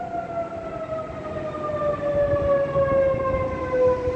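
Outdoor tornado warning siren sounding a long wail, its pitch gliding slowly down and then starting to rise again near the end.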